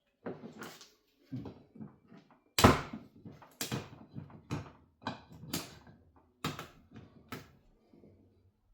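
A string of irregular knocks and clunks, about a dozen, from objects being handled and put down; the loudest comes about two and a half seconds in.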